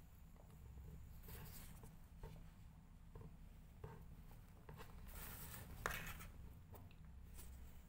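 Faint rustling and a few small clicks over a low hum of room tone, with a short burst of rustling and one sharper click about six seconds in.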